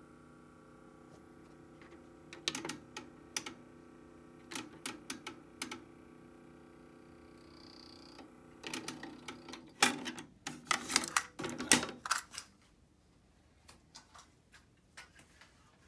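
Pioneer CT-W302R cassette deck's transport buttons being pressed, the mechanism clicking and clunking in short groups, then in a dense run of clicks, over a steady motor hum that stops about twelve seconds in. The deck needs a new belt.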